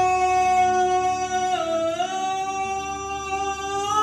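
A man singing a Hindi song into a handheld microphone, holding one long sustained note that dips briefly in pitch about one and a half seconds in and then rises back.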